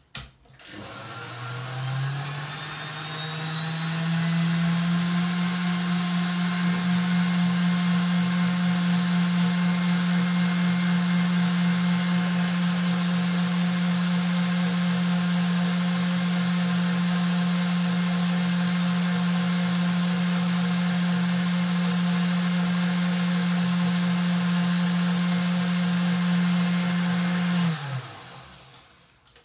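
Stand mixer with a wire whisk whipping a thick cream-cheese and powdered-sugar cream. Its motor hum rises in pitch over the first couple of seconds as the speed is turned up, runs steadily, then winds down and stops near the end.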